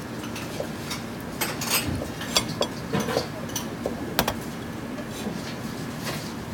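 Scattered light clicks and taps of kitchen handling: fingers working mandarin segments on a ceramic plate, then a sharper knock about four seconds in as the metal seasoning shaker is picked up off the stainless-steel counter.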